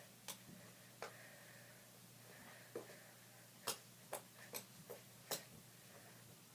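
Near silence broken by faint, sharp clicks at irregular intervals, about eight of them, with a small cluster in the second half.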